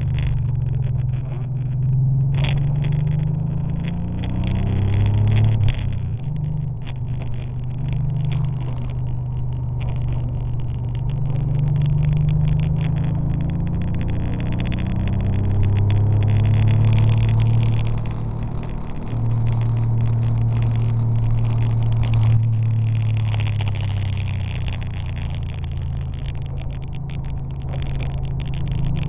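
Porsche 911 (964) air-cooled flat-six engine under load, its pitch climbing steadily then dropping sharply at gear changes, over a steady hiss of tyres on a wet track.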